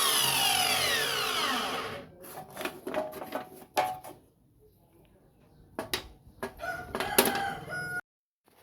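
Table saw made from a circular saw, its motor and 7-inch blade winding down after being switched off: a whine falling in pitch for about two seconds. Then scattered knocks and clatter, and the sound cuts off suddenly near the end.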